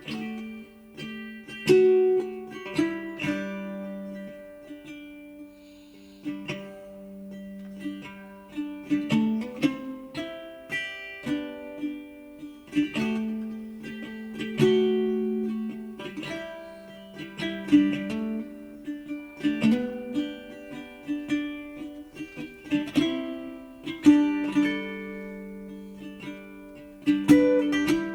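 Background music: a gentle plucked-string tune, ukulele or acoustic guitar, played note by note.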